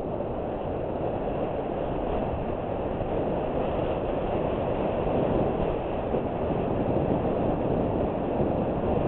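Continuous rumble of a mountain bike descending a packed-dirt and gravel fire road, heard from a helmet camera: tyres rolling over the dirt, the bike rattling, and wind rushing over the mic. It grows slightly louder as the descent goes on.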